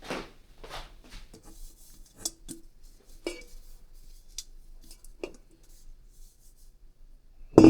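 Kitchen handling sounds: scattered light clicks and clinks of a bowl and utensils being moved while dough is oiled and readied to rest, with one louder knock near the end.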